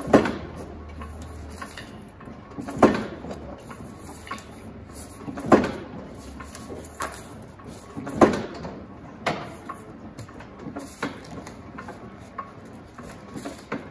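Chandler & Price clamshell platen press running as a die cutter: a loud clack about every 2.7 seconds as the platen closes on the bed, four times, with lighter clicks and knocks from the mechanism between. After the fourth stroke, about eight seconds in, only the lighter clicks go on.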